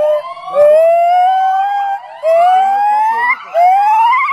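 White-cheeked gibbon calling: a run of long rising whoops, three of them, each pitched higher and shorter than the one before, the last ones ending in a quavering climb.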